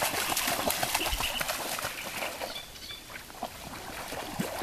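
Belgian Shepherd dog trotting through shallow lake water, its paws splashing in a quick patter that eases off about halfway through.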